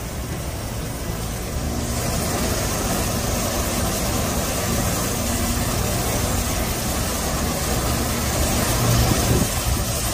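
The Waikato River rushing over Huka Falls: a steady roar of white water, growing fuller about two seconds in.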